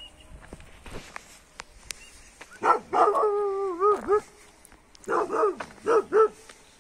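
Village dogs barking: about halfway through, one long wavering cry, then a quick run of about four short barks.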